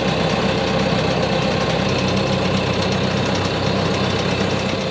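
Sailboat's inboard diesel engine running steadily under way, an even low drone with no change in speed.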